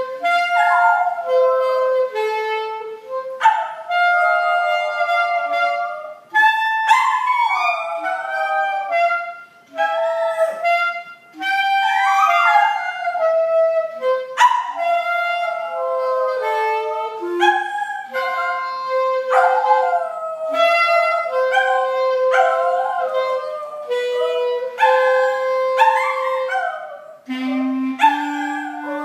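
Clarinet playing a national anthem while a small dog howls along with it, its wavering howls sliding up and down over the held notes.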